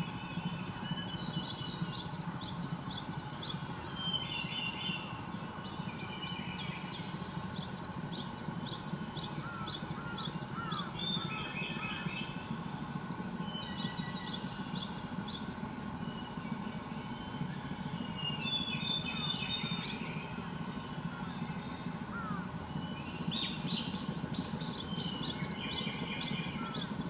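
Wild songbirds singing: short phrases of rapid high notes repeating every few seconds, with a few softer chirps, over a steady low hum.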